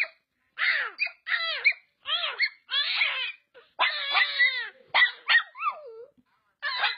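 A dog giving about a dozen high-pitched yelps and whines in quick succession, each call rising and falling in pitch, with a longer drawn-out one about midway.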